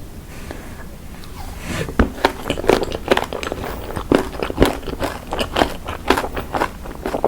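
Close-up crunching and chewing of spicy lime salad: crisp, sharp bites and chews come several times a second from about two seconds in, after a quieter start.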